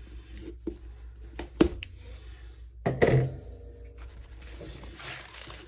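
Scissors snipping through a ribbon, a few sharp clicks, then a dull thunk about three seconds in, and the rolled canvas rustling as it is unrolled near the end.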